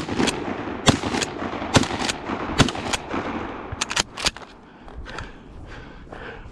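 A shotgun fired at running deer in a rapid string of shots, the first the loudest, followed by several more sharp reports about a second apart and a quick cluster of cracks around four seconds in.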